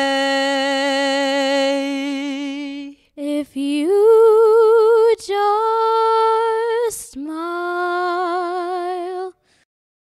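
Unaccompanied solo singing: a teenage boy holds one long steady note for about three seconds, then a girl sings three long held notes with vibrato, stopping shortly before the end.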